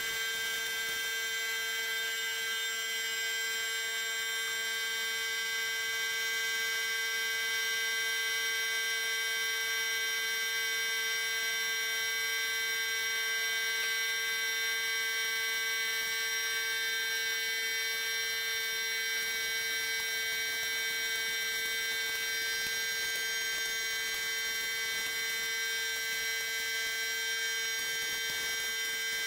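Steady electric motor whine with many high overtones, holding one pitch and level with no break.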